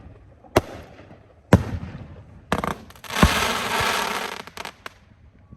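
Aerial firework cake shots bursting overhead: a few sharp bangs about a second apart, then a dense crackling spray about three seconds in that lasts nearly two seconds, ending with a few small pops.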